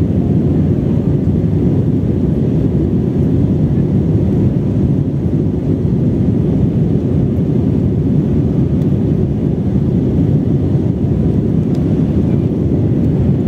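Steady low drone of a jet airliner's cabin in flight: engine and airflow noise heard from a window seat.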